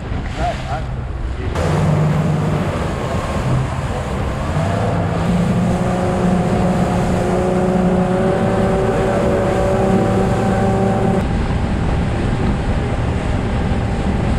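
Motorboat running under way: steady engine noise mixed with rushing wind and water. It gets louder about a second and a half in, and a steady engine tone stands out through the middle.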